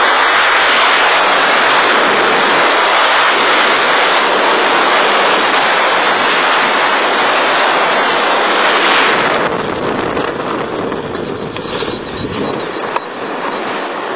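Strong wind rushing over the microphone of a skydiver's helmet camera in freefall. About nine seconds in it drops abruptly to a softer, uneven wind noise.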